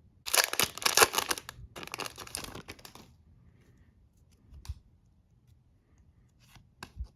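Foil wrapper of a hockey card pack being torn open and crinkled, in two crackly stretches, followed by a few light taps and clicks of the cards being handled.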